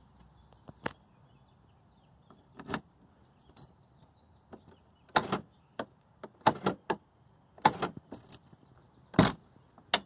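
Key working the driver's door lock of a Volvo 740, setting off the electric central locking: a series of short, sharp clicks and clunks, several in quick pairs, as the lock pins are driven. Near the end comes the loudest clunk, as the door latch releases and the door is pulled open.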